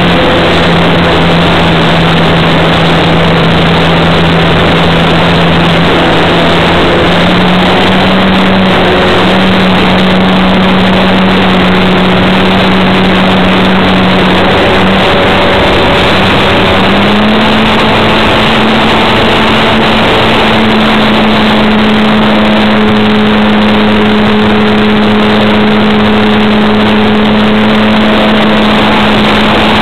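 Radio-controlled model Cessna's motor and propeller, recorded by the camera on board the plane, running steadily under loud rushing noise. Its hum steps up slightly in pitch twice, about 7 and 17 seconds in, as the throttle is opened a little.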